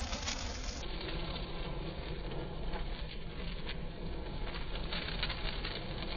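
Ground fountain firework spraying sparks: a steady hiss with scattered crackles.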